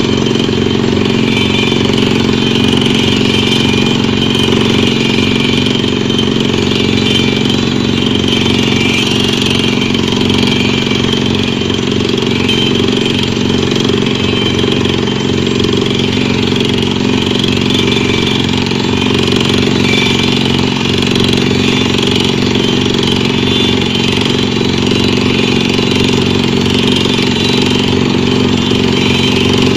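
Pneumatic drilling rig's engine-driven machinery running loud and steady, with a constant hum and a fast low flutter and no change in pace.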